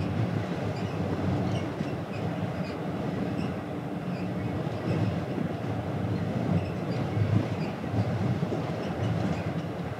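Steady low rumble of the car ferry Jumbo Ferry Aoi under way, heard on its deck, with faint scattered ticks and rattles over it.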